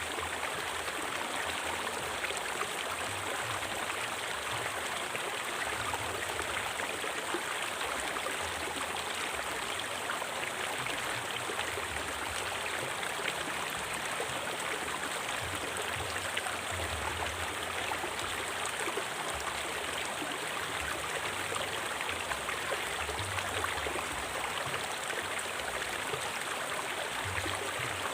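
River water flowing over rocks, a steady rushing and babbling with no breaks.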